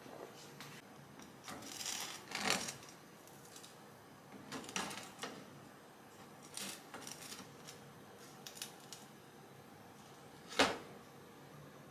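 Kitchen handling sounds: a series of light taps, clicks and brief scrapes of tableware and utensils, with one sharper knock near the end.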